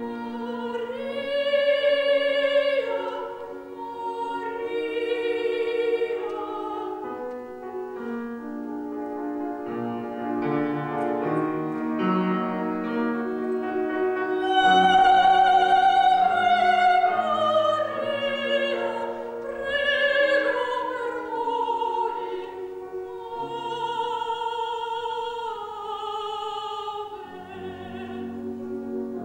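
A woman singing an operatic classical song with vibrato to piano accompaniment, holding long notes; the loudest is a sustained high note about halfway through.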